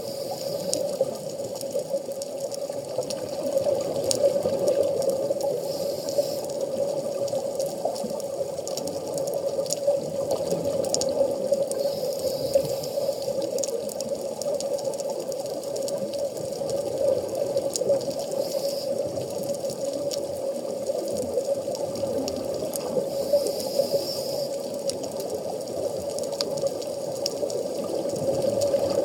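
Underwater reef ambience picked up through a camera's waterproof housing: a steady, muffled water noise with scattered faint clicks.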